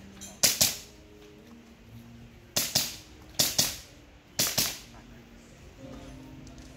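Handgun fired in four quick pairs of shots, double taps with about a fifth of a second between the two shots of each pair, with gaps of about one to two seconds between pairs.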